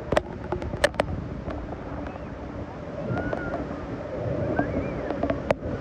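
Steady rush of a waterfall pounding down close by, with wind buffeting the microphone. A few sharp clicks come in the first second, and the rush grows a little louder about four seconds in.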